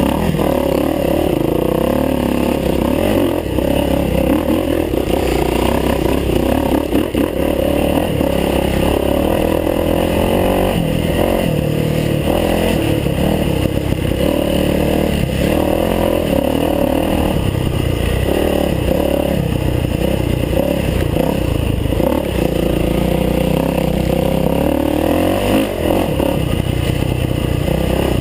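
Dirt bike engine running continuously as it is ridden, its pitch rising and falling with the throttle, loud and close, with rattling from the bike over rough ground.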